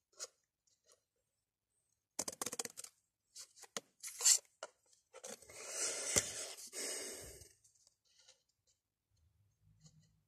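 Scissors snipping through thin card in short runs of sharp cuts, followed around the middle by a longer rustling scrape as the card is handled close to the microphone.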